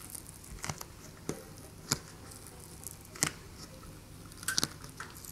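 Deflated tubular tyre being worked off a taped deep-section rim by hand: several short, sharp clicks and crackles as the tyre is pushed and starts to come away from the tape.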